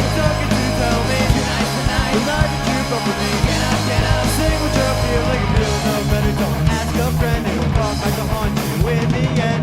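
A rock band playing live: electric guitars, bass and drum kit in a steady punk-rock groove, with no vocal line here.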